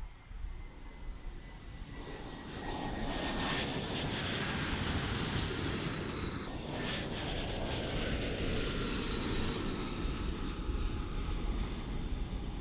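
F-35A Lightning II jet engine (Pratt & Whitney F135 turbofan) on the runway. A loud jet rush swells about two seconds in, with a high whine and a slowly falling tone over it, and a brief swishing sweep just past the middle as the jet goes by.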